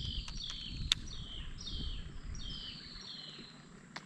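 A bird calling: a run of short whistled notes, each sliding downward, repeated about twice a second and stopping about three seconds in. A single sharp click sounds about a second in, over a low rumble.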